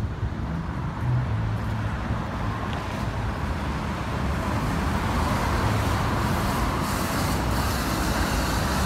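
Street traffic: cars driving past on the road in a steady rumble of engines and tyres, growing a little louder in the second half.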